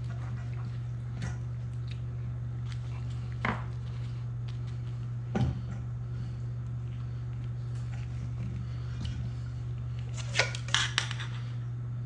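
Occasional light knocks and clinks of kitchen utensils and dishes being handled, with a few single taps and a quick cluster of clicks near the end, over a steady low hum.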